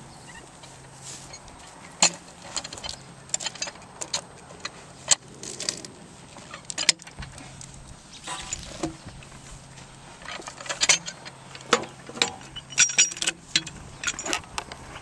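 Scattered metallic clinks and knocks of chain, hooks and a cant hook against steel and wood as a log is rolled and hooked under a steel log arch, over a low steady hum.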